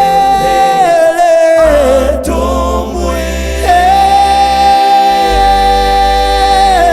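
A cappella gospel vocal group singing in close harmony, holding long chords with vibrato over a deep bass part. The chord shifts about a second and a half in and again near the end.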